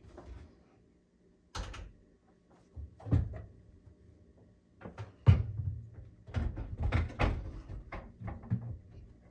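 Panasonic NN-SN67K microwave oven being lifted and slid into a wooden cabinet opening: a string of knocks and bumps with some scraping as its case meets the cabinet. The loudest knock comes about five seconds in, followed by a quick cluster of bumps as it is pushed home.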